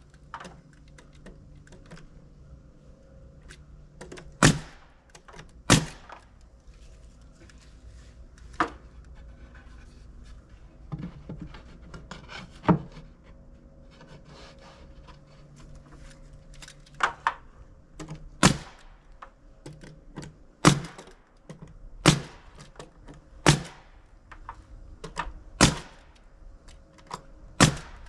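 Porter-Cable DA250C pneumatic angled brad nailer firing brads into wooden soffit boards overhead: about a dozen sharp shots, spaced irregularly one to several seconds apart, with a gap of a few seconds in the middle. Its freshly replaced trigger valve lets it fire cleanly.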